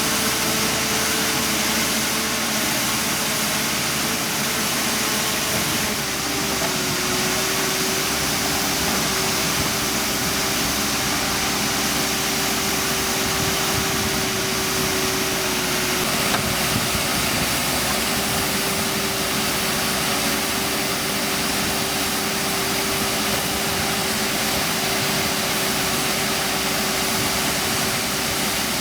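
Backhoe loader's diesel engine running steadily, its pitch dropping slightly about six seconds in and then holding.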